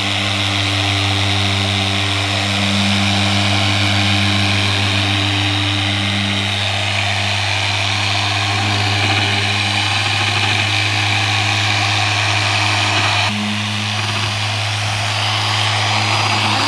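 Harbor Freight electric dual-action polisher with a foam pad running steadily on car paint, a constant motor hum.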